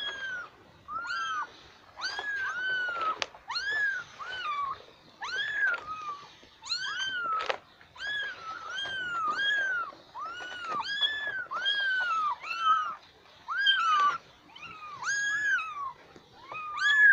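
Young kittens mewing over and over, a steady run of high mews about one or two a second, each rising then falling in pitch. A few sharp clicks fall between them.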